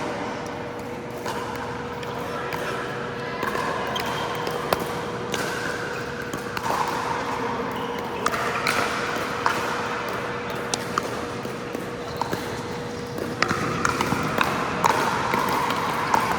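Pickleball paddles striking a hard plastic ball: sharp pops at irregular intervals, several close together near the end, echoing in a large indoor hall over a steady hum.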